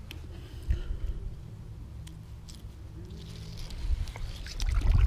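Close scuffing and crunching handling noise with scattered clicks, over a low rumble of wind on the microphone; it grows louder near the end.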